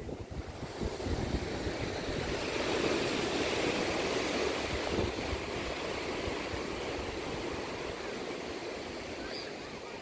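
Ocean surf breaking and washing up a sandy beach, swelling a couple of seconds in and then easing off, with wind buffeting the microphone.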